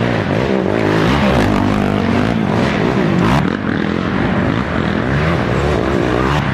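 Several racing ATV engines revving hard, their pitch rising and falling as the riders work the throttle and shift through the gears.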